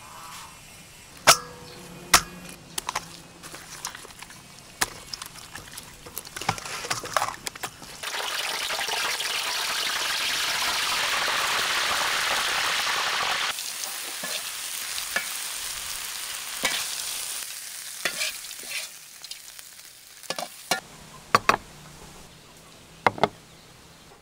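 Knife chopping stingray on a wooden block in sharp separate knocks, then stingray pieces deep-frying in hot oil with a loud steady sizzle for about five seconds, then more scattered knocks and clicks.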